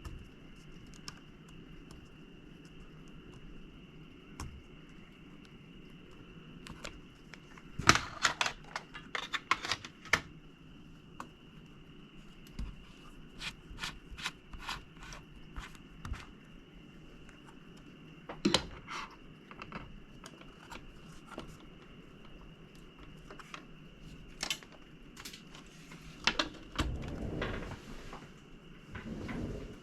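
Small clicks, taps and scrapes of hand work on a graphics card being taken apart: a sticker peeled off and screws worked with a screwdriver. There is a dense run of clicks about eight seconds in and a longer scraping sound near the end.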